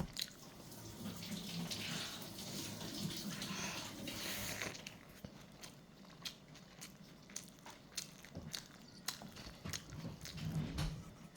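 Close-up eating sounds of kimchi fried rice: a wet, noisy stretch of chewing for the first four seconds or so, then scattered small clicks and mouth noises.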